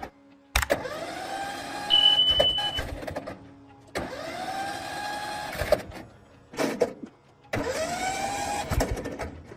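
An old tractor's electric starter motor cranking the engine in three separate tries, each whining up in pitch, holding for a second or so, then cutting off. The engine does not catch: it is broken and will not start.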